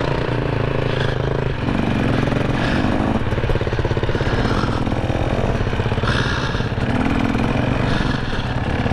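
GasGas dirt bike engines running at low speed across grass, the rider's own bike closest, with the revs rising and falling a few times.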